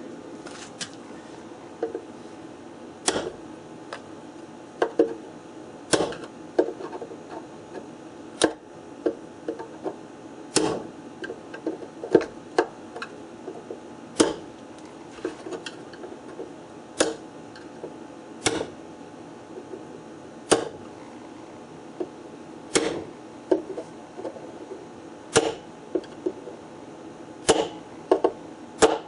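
Hammer striking a punch to fold the tabs of split rivets flat into wood: sharp strikes every couple of seconds, with lighter taps between.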